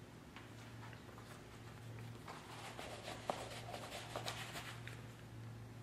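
Faint rustling and a few small taps as a work glove is pulled on, over a low steady hum.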